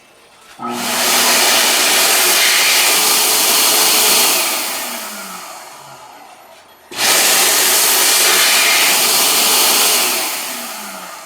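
Panasonic hand dryer blowing, run twice. Each time the blower starts abruptly and runs at full speed for a few seconds, then shuts off and winds down with a falling whine.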